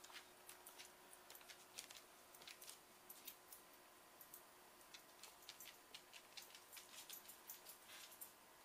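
Faint, irregular clicking from a boxer dog moving on a hardwood floor: its claws tap the wood, with a light jingle from its collar tags.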